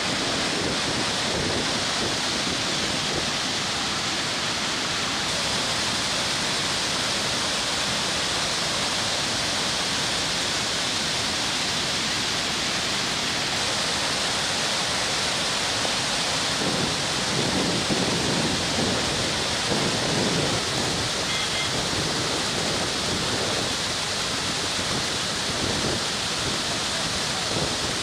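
Steady, even rush of floodwater pouring through the crest gates of Bhadra Dam and crashing onto the spillway, as the reservoir releases water through four open gates.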